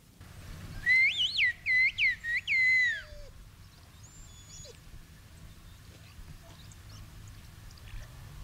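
A man whistling a short phrase in an old whistled code language, a signal of greeting: a run of loud swooping, rising-and-falling notes lasting about two seconds, starting about a second in. Afterwards only a low steady outdoor rumble with a few faint high chirps.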